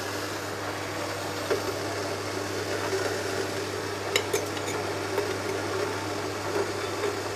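Steady hiss of water boiling in a steel idli pot, with a few light metallic clinks as a stainless-steel idiyappam stand is set down inside it, two of them close together about four seconds in.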